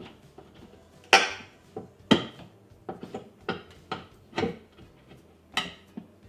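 Hand tools knocking and prying at wood and sheetrock during cabinet demolition: a run of about nine uneven sharp knocks and bangs, the loudest about a second in and again about two seconds in.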